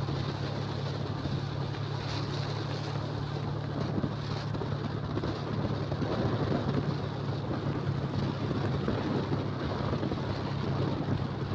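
Motorcycle engine running at a steady cruise, with a constant low hum and wind rushing over the microphone.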